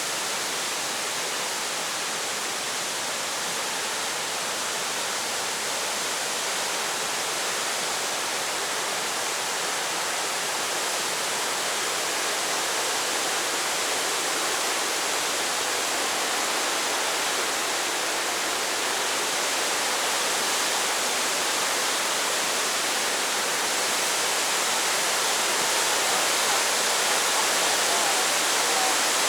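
Steady rush of falling water from a waterfall, an even hiss and roar that grows slightly louder toward the end.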